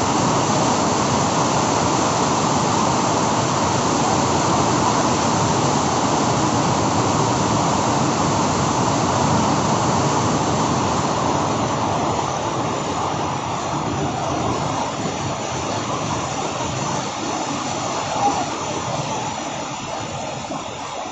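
Heavy rain pouring down, a dense steady hiss that eases a little in the second half.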